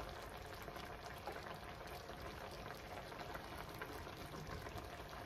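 Thick cream sauce with codfish simmering in a pan, a steady faint bubbling with many small pops.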